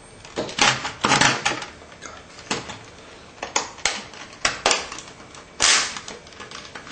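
Plastic shell of a disposable camera being pried open with a screwdriver: an irregular run of sharp clicks and snaps as the snap-fit joints pop apart, with one longer scraping crack just before the end.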